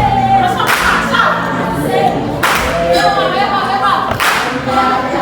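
Group singing with music, with a sharp clap-like hit about every two seconds, three times.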